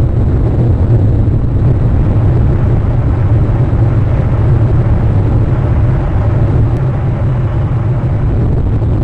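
Wind buffeting an outdoor camera microphone: a loud, steady low rumble with no bird calls.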